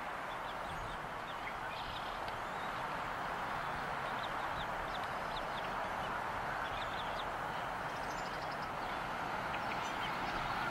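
Bald eaglet chirping: short, faint, high peeps scattered irregularly over a steady hiss.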